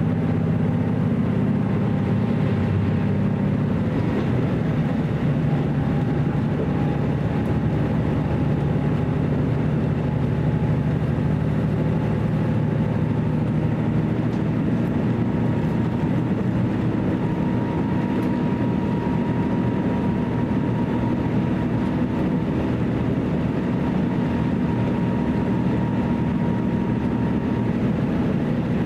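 Running sound inside a JR Central KiHa 75 diesel railcar under way: the diesel engine's steady drone over the rumble of wheels on rail, with the engine note shifting slightly about halfway through.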